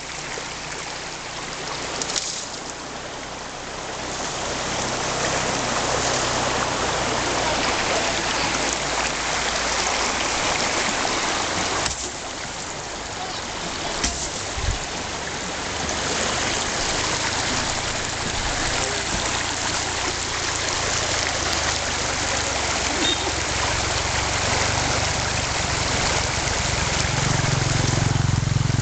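Water rushing steadily, with a low hum underneath that swells near the end.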